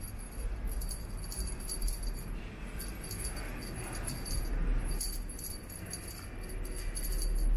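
Small bell on a cat teaser toy jingling in short bursts, again and again, as the toy is jerked across the ground.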